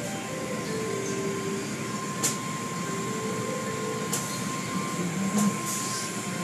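Automatic tunnel car wash running: a steady wash of water spray and machinery noise heard from inside the car, with a thin steady whine and a couple of sharp slaps about two and four seconds in.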